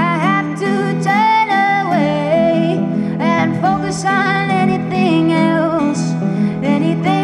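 A woman singing a blues number, accompanying herself on acoustic guitar, her voice sliding between long held notes.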